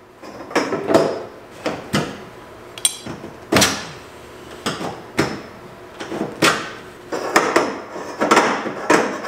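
Irregular knocks and clanks of metal parts being handled and fitted in a car body, a dozen or so sharp strikes, the loudest a little over three and a half seconds in.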